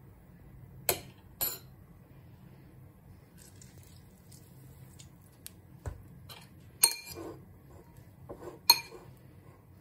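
Metal spoon clinking against a ceramic bowl: four sharp clinks with a short ring, two about a second in and two more in the second half.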